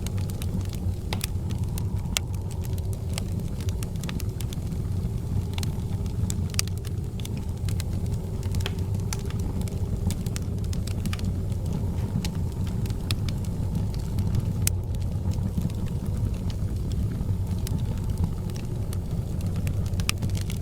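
Fire burning in a fireplace: scattered sharp crackles and pops over a steady low rumble.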